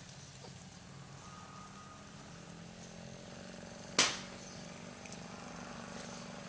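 A single sharp crack about four seconds in, over a steady low background hum.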